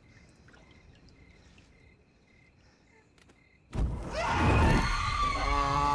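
Quiet night with faint, evenly spaced chirps. About four seconds in, a body catches fire with a sudden loud whoosh of flames. Near the end a man's anguished scream rises over the burning.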